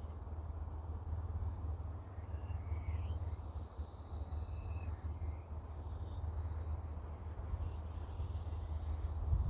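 Outdoor ambience: birds chirping and calling in short high notes over a steady low rumble.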